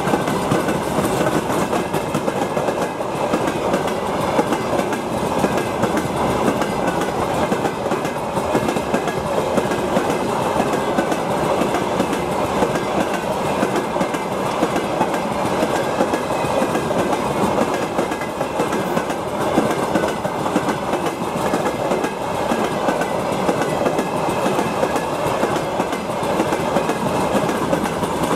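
Freight train of open-top gondola wagons rolling past at close range, the wheels running steadily over the rails.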